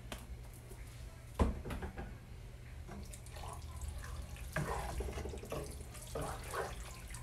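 Wooden spatula stirring ground beef and barbecue sauce in a pot: soft, wet, irregular squishing and scraping. There is one sharp knock about a second and a half in, over a low steady hum.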